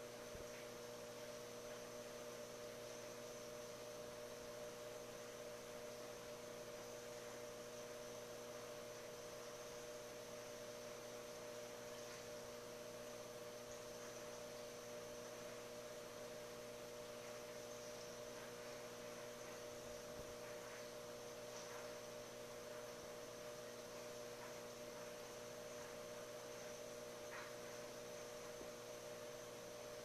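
Steady electrical hum of running aquarium equipment, over a faint hiss, with a few faint ticks.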